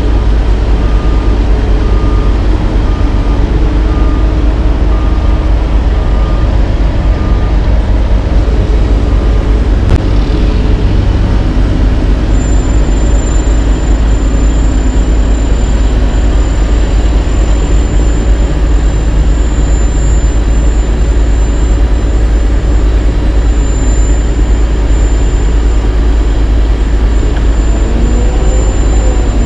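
Heavy diesel engines of a CAT AP655F asphalt paver and a dump truck running steadily while the raised dump box feeds asphalt into the paver, a loud, even, low rumble. A faint repeated beep sounds through the first several seconds.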